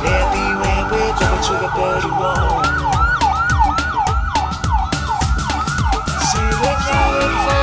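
Electronic siren sounding in repeated falling sweeps, about three a second, over loud music with a heavy bass beat. The sweeps stop about seven seconds in, leaving the music.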